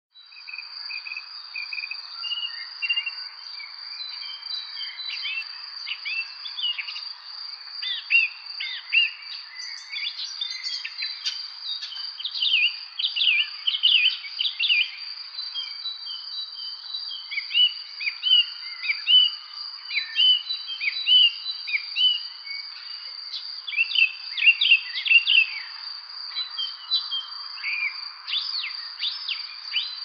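Nestlings begging for food with clusters of short, high chirps that come thick and fast at times. Behind them a steady high-pitched insect drone never stops.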